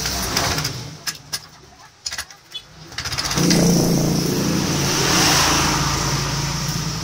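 A nearby engine running steadily, louder from about three seconds in, with a few sharp metal clicks from an adjustable wrench working the ignition coil's iron core.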